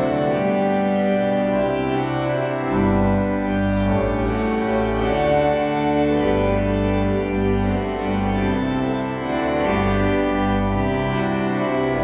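An organ playing music: sustained full chords over a bass line that changes note every second or so.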